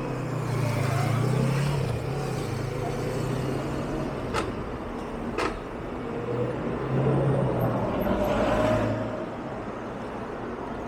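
City street traffic: a low engine hum with vehicles passing, swelling twice, and two sharp clicks about a second apart near the middle.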